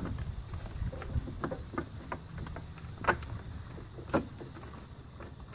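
Irregular clicks and metallic knocks of hand tools working on the engine as the VTEC solenoid is being unbolted, with a low rumble under them for the first couple of seconds.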